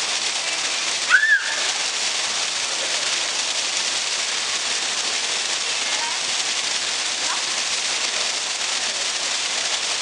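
A column of water falling into a shallow pool, a steady splashing hiss. About a second in, a single brief high chirp rises and falls over it.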